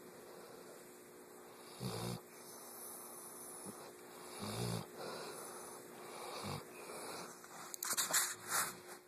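Slow snoring in sleep: three snores about two and a half seconds apart, then a louder patch of crackling clicks near the end.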